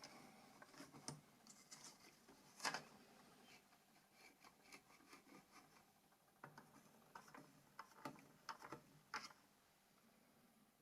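Near silence with faint, scattered small clicks and scratches of small parts being handled. The most distinct comes about three seconds in and another near nine seconds.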